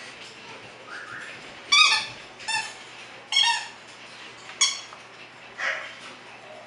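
Squeaky vinyl dog toy squeaking under the bites of two bulldog puppies: five short, sharp squeaks at irregular intervals about a second apart.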